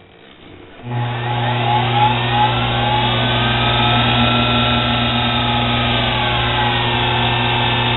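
Treadmill DC motor that drives the lathe, fed by its speed controller, starting about a second in and running with a steady electrical hum and a whine that rises a little in pitch and then falls back.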